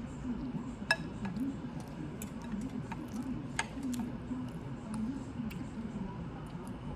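Eating sounds: chewing with scattered sharp mouth and utensil clicks, the loudest about a second in, over a low steady background hum.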